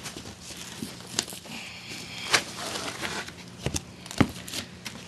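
Cardboard box and plastic packaging being handled as a computer is taken out of its box: a few scattered knocks and thumps, with a brief crinkle of plastic.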